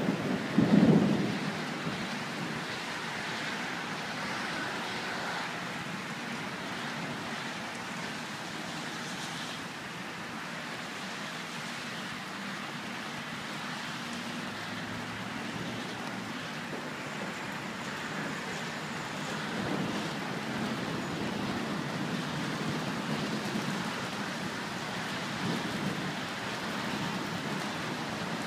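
A loud clap of thunder about a second in, followed by the steady hiss of rain from a thunderstorm.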